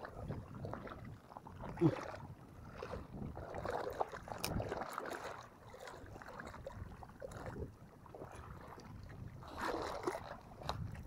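Water sloshing and lapping in uneven swells, with wind on the microphone and a few small knocks.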